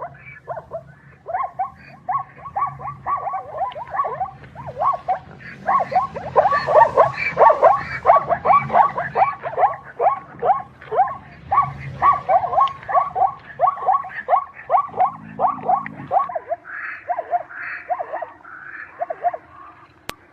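Zebra calling: a long run of quick, barking yelps, two to three a second, loudest in the middle of the run.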